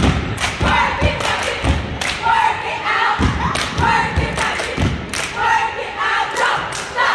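Cheerleading squad chanting a stomp-and-shake cheer in unison, with their feet stomping and hands clapping on the beat in a steady rhythm of about two hits a second.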